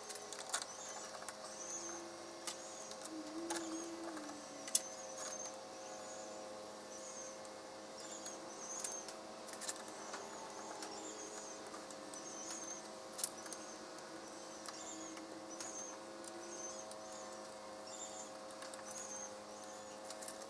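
Faint steady electrical hum, with scattered light clicks and a short high chirp recurring about once a second.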